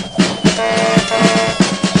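Music with a steady drum beat. About half a second in, a held pitched chord sounds twice in a row.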